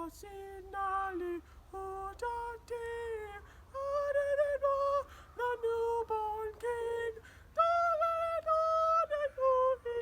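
A high voice singing a slow melody of held notes that step up and down in pitch, each note slurring briefly into place.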